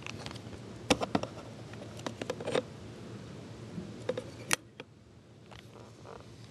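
Handling noise from a hand-held camera moving around a miniature dollhouse: a scatter of small clicks and taps over a steady hiss. There is a cluster about a second in, another around two and a half seconds, and a sharp tap about four and a half seconds in, after which the hiss drops away.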